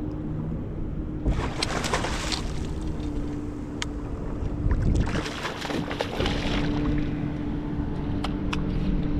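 A hooked striped bass thrashing and splashing at the surface beside the boat in two bursts, over a steady engine hum.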